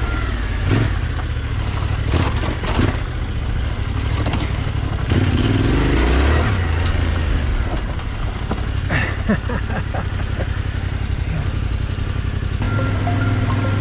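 Yamaha Ténéré 700's parallel-twin engine running under varying throttle on a rough dirt trail, with sharp knocks and clatter as the bike rides over bumps. Near the end the engine settles into a steady, even note.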